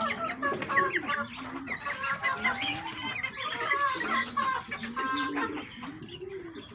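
Backyard chickens clucking in a busy overlapping chorus while feeding. Underneath runs a string of low calls, each rising and falling over about half a second.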